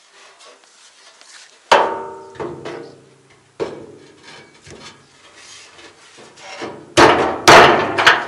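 Hammering as a side board is fitted to a walk-behind tractor's trailer: about five separate knocks, each ringing briefly, the loudest two close together near the end.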